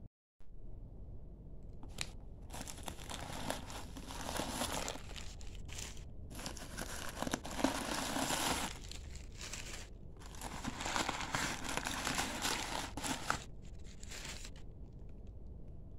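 Crumpled packing stuffing inside a new handbag crinkling and rustling as hands push into it and pull at it, starting about two seconds in, with two short pauses, and stopping a little before the end.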